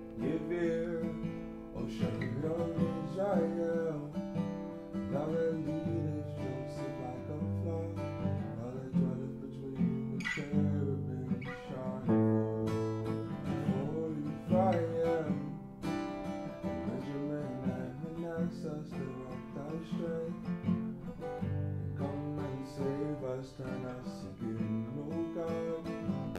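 Acoustic guitar played in a mix of strummed chords and picked notes, with a man singing a slow melody over it.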